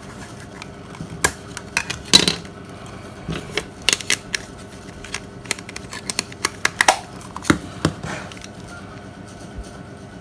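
Irregular sharp clicks and taps of old plastic mobile phones being handled: casings knocking together and against the table.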